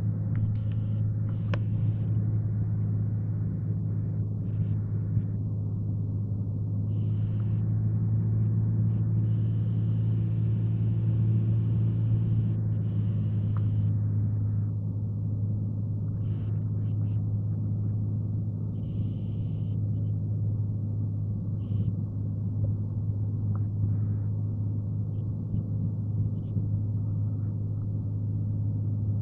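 Cessna 182's engine and propeller droning steadily as heard inside the cockpit, a low, even hum with its overtones and no change in pitch.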